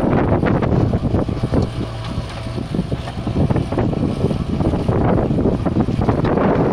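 JCB 3DX backhoe loader's diesel engine running steadily under load as the backhoe arm digs and swings a bucket of soil over to a trolley. Wind buffets the microphone throughout.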